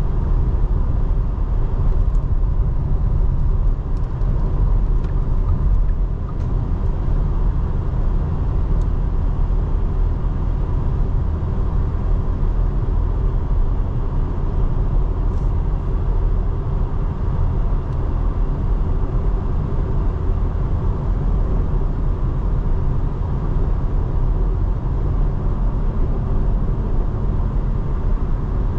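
2024 Porsche Cayenne being driven at a steady pace: an even low rumble of engine and road noise with a faint steady hum, no change in speed.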